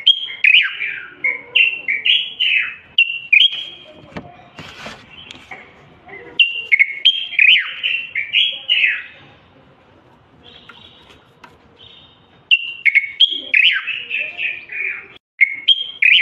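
Common bulbul singing: three phrases of quick, rich whistled notes, each a few seconds long, separated by pauses of about three seconds.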